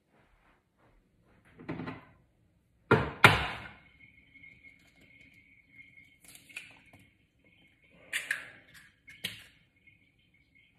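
Eggs being knocked against the rim of a bowl to crack them: a few sharp knocks, two loud ones in quick succession about three seconds in and two more near the end, with a faint steady high whine behind them from about four seconds in.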